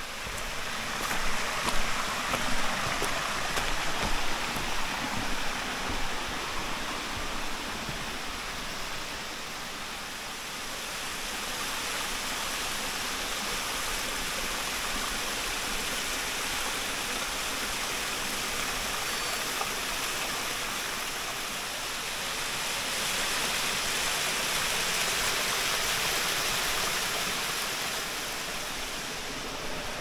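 Steady rushing of falling water from a waterfall and mountain stream. Over the first several seconds there are irregular footsteps on leaf litter and rock.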